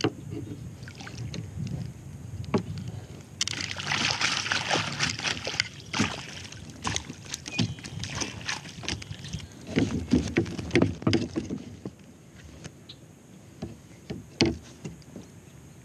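Water splashing as a rainbow trout is scooped into a wooden-framed landing net beside a plastic kayak, the splashing heaviest for a couple of seconds a few seconds in. Sharp knocks and clatter of the net frame and fishing gear against the hull run throughout.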